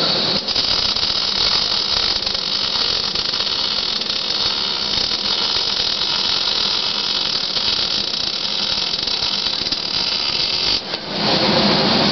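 MIG/MAG (gas metal arc) welding arc laying a bead on steel plate: a steady crackling hiss that starts about half a second in and cuts off near the end as the torch trigger is released.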